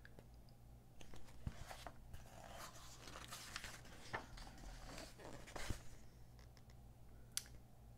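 Pages of a glossy magazine being turned and handled: faint paper rustling in several short bursts over the first six seconds, then a single sharp tick near the end.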